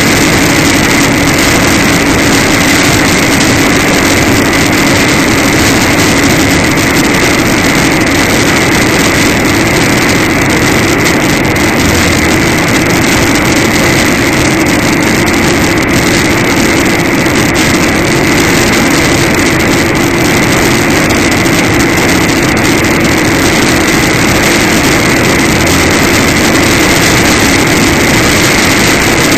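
Steady engine drone and road noise inside a vehicle cruising at highway speed, with a constant low hum and a steady high whine.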